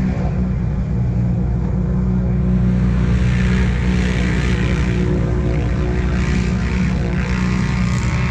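Off-road racing vehicle engine, an ATV or side-by-side, running hard at steady high revs, with a rushing noise joining in about three seconds in.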